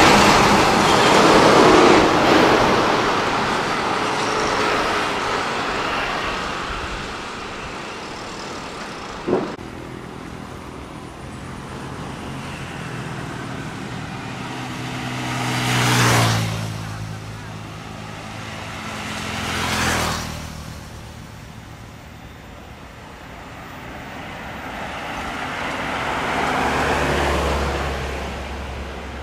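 Road traffic passing close: a heavy diesel truck goes by at the start, then trucks and motorcycles follow, with two quick close passes about 16 and 20 seconds in and a truck's low engine rumble building near the end. A single sharp click about nine seconds in.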